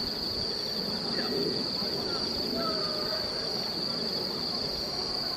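Crickets chirping in a steady high-pitched trill, with indistinct voices of a crowd talking underneath.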